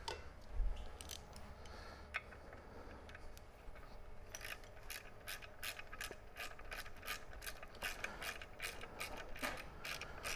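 Ratcheting wrench clicking as the clutch pressure-plate bolts are run down onto the flywheel: a faint thud about half a second in, then from about four seconds in a steady run of quick clicks, about four a second.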